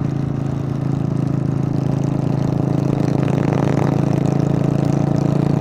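Buell Blast's 492 cc single-cylinder engine running at a steady cruise, a steady low drone that grows a little louder over the first couple of seconds.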